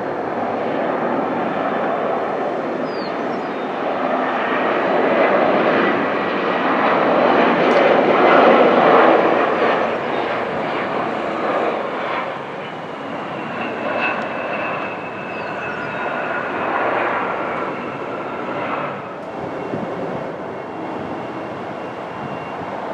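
Embraer E175 regional jet's turbofan engines coming in to land: a rumble that builds to its loudest about eight seconds in, then eases. From about the time of touchdown, a steady high whine sits over the rumble for several seconds.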